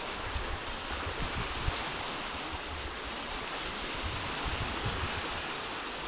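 Black Sea surf washing steadily onto a pebble beach.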